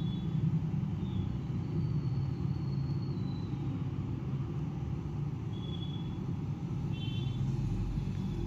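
Steady low background rumble, with a few brief, faint high-pitched tones over it.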